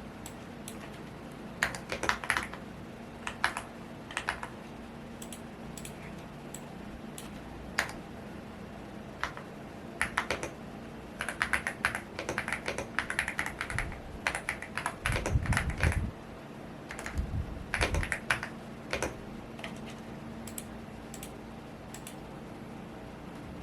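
Typing on a Womier S-K71 mechanical keyboard: irregular bursts of key clicks with pauses, busiest around the middle, over the steady hum of a fan. Two brief low rumbles come about two thirds of the way through.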